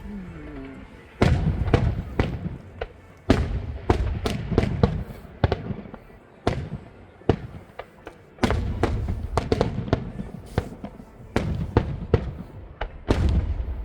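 Aerial fireworks going off: many sharp bangs and crackles over a deep booming rumble, with heavy volleys starting about 1, 3, 8 and 13 seconds in.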